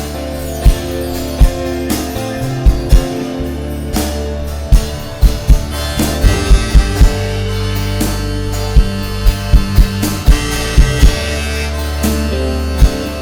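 Live band playing an instrumental passage: guitars over held bass notes, with drum hits every second or so.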